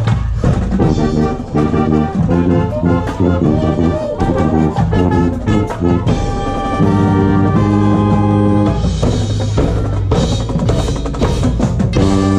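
Marching band brass and percussion playing, with the player's own tuba close to the microphone: short, punchy brass chords over drum hits for about six seconds, then long held chords with cymbal crashes, and a loud held chord near the end.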